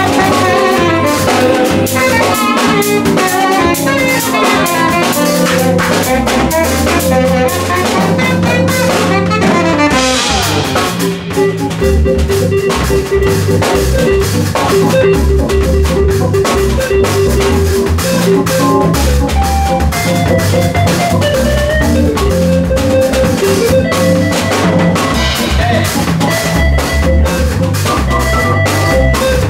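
Live jazz combo playing: saxophone, hollow-body electric guitar, keyboard and drum kit. The saxophone carries a busy melodic line through the first ten seconds or so, after which the guitar, keyboard and drums carry on.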